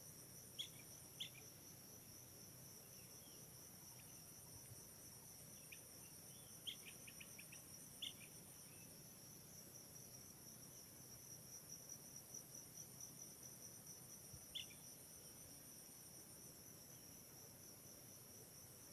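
Faint, steady chorus of insects, crickets trilling high, with a few short sharp chirps now and then, including a quick run of them about seven seconds in.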